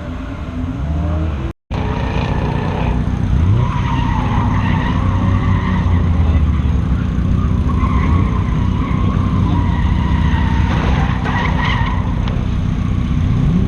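Ford Mustang drift car sliding: a long tyre squeal wavering in pitch over the engine running hard. The sound drops out completely for a moment about a second and a half in.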